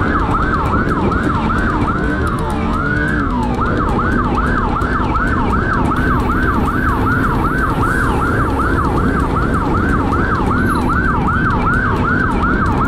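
Police siren on a fast yelp, its pitch sweeping up and down about three times a second, with one slower sweep about three seconds in. Underneath is a steady rushing of motorcycle engine and wind noise.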